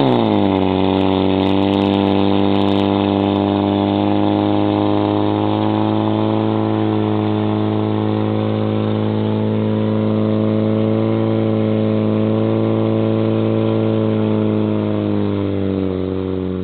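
Portable fire pump's engine running flat out at a steady high pitch, under load as it pushes water through the laid hose lines to the nozzles. Its pitch drops quickly in the first half-second after the rev-up, then holds, sagging a little near the end.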